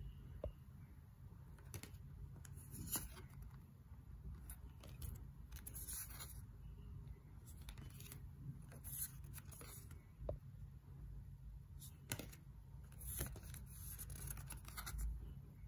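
Thick matte-finish tarot cards being handled one at a time: brief papery slides and light taps as each card is pulled from the deck and laid on the pile, every second or two, over a faint low hum.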